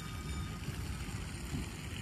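Steady low rumble of outdoor background noise with a faint hiss above it, even throughout with no distinct events.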